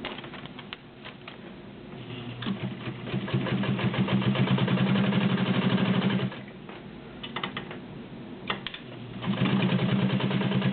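Vintage White Super Deluxe Japanese-made zigzag sewing machine stitching through a couple of layers of suede leather. It runs up to a fast, even stitching rhythm for about four seconds, stops with a few clicks, then starts sewing again near the end.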